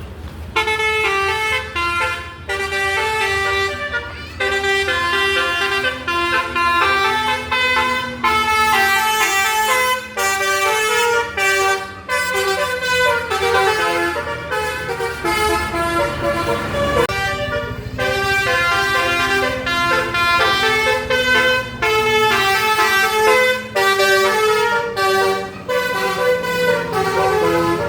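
Bus telolet horn, a Basuri multi-tone air horn, playing a long run of quick melodic notes with short breaks. A low engine hum runs underneath.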